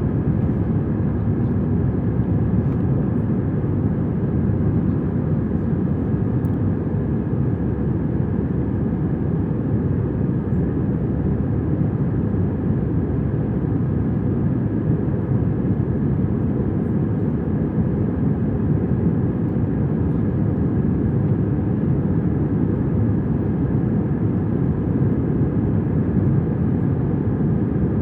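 Steady cabin noise of an Airbus A320-200 airliner in flight during the climb: an even, deep engine and airflow rumble with a faint steady hum above it.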